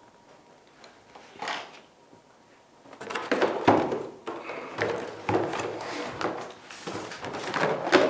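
Mobile phones being dropped one after another into a cardboard box on a table, a run of clattering knocks starting about three seconds in.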